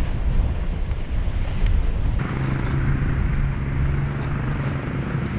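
Outdoor ambience: a low rumble of wind on the microphone, then, about two seconds in, a steady low hum of a running engine.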